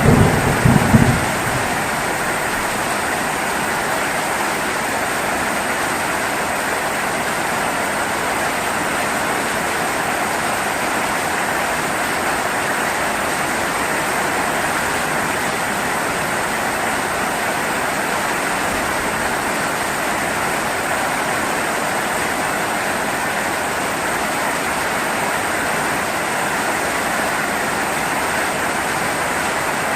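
Steady heavy rainfall, an even hiss. A short, low rumble of thunder comes in the first second or so.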